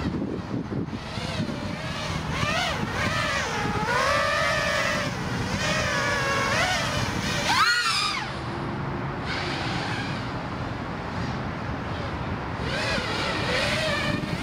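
FPV racing quadcopter's four T-Motor F40 2600kv brushless motors and props whining in flight, the pitch gliding up and down as the throttle changes. There is a sharp rise and fall about eight seconds in, and another rise near the end.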